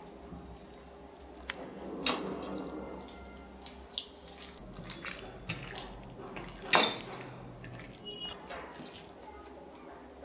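Hand mixing flour into marinated chicken strips in a stainless steel plate: wet squelching and squishing, with irregular clicks, and two louder slaps about two seconds in and near seven seconds.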